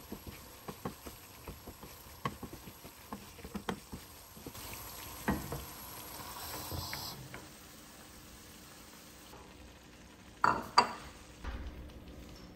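Cooking at the stove: a utensil clicking against a pan, then a short stretch of food sizzling, and two louder knocks near the end.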